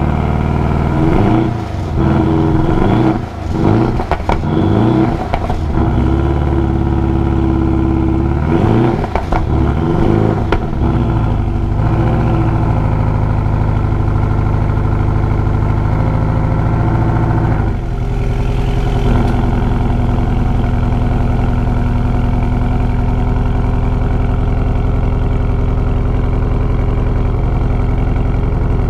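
Porsche 718 Cayman GTS turbocharged flat-four through its stock exhaust, heard close to the tailpipe. It is revved up and down several times over the first dozen seconds, holds a steadier note, then drops to a lower, steady run about two-thirds of the way in.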